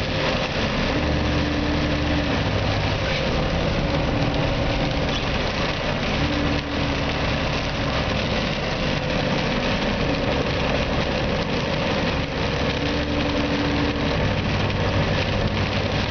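Car cabin sound while driving on a wet highway in rain: the engine runs under a steady hiss of tyres on the wet road and rain on the windshield, and the low engine note shifts a few times.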